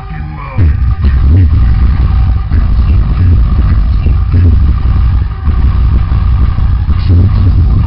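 Loud, distorted music with heavy booming bass played over a sonidero sound system, the bass surging in about half a second in.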